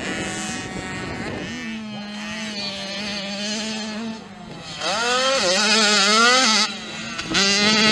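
Small two-stroke mini motocross bike engines revving through the gears. About five seconds in, one bike's engine climbs sharply in pitch and gets louder, then cuts off abruptly.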